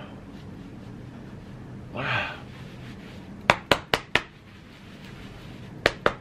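Two quick runs of four sharp clicks, one midway and one near the end, over faint room tone, with a short breathy voice sound about two seconds in.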